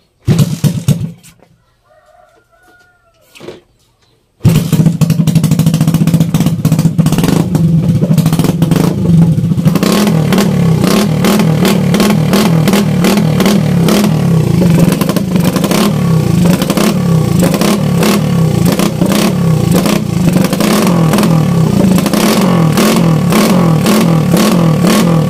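Suzuki Raider 150's single-cylinder four-stroke engine, fed by twin Walbro 28 mm carburetors, running loud with uneven revs, cutting in abruptly about four seconds in after a brief burst at the start.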